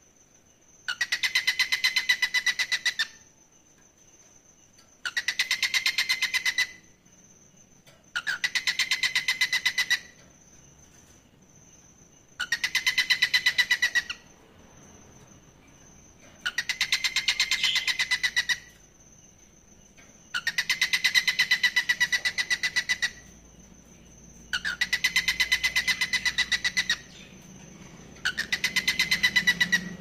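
Male cockatiel giving a rapid, chattering call at one steady pitch, about two seconds at a time and repeated about every four seconds, eight times in all: courtship calling, a sign that the bird wants to mate.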